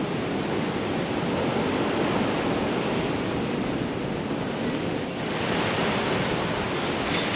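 Steady noise of strong wind and breaking surf, with wind buffeting the microphone. The hiss brightens about five seconds in.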